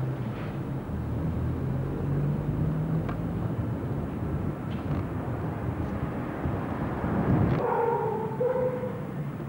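Outdoor street background with a low, steady traffic rumble and an engine-like hum in the first few seconds. A brief pitched call sounds near the end.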